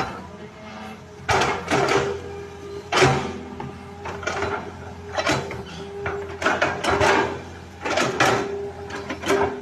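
Hydraulic excavator at work: the engine runs steadily under repeated clusters of metallic clanks and scrapes from the machine's moving parts, about one cluster a second.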